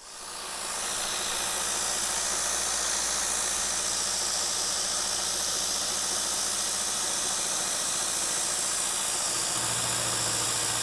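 Milling machine spindle driven by a variable frequency drive, starting up and running steadily at about 850 RPM with an even hiss and a faint steady hum. A deeper hum joins near the end.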